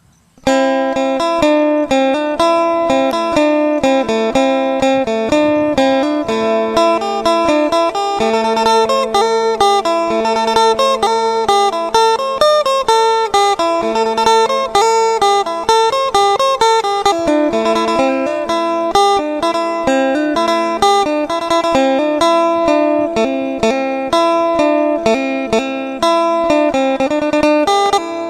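Isan phin (plucked lute) music starting abruptly about half a second in: a fast, busy plucked melody over a steady held drone note.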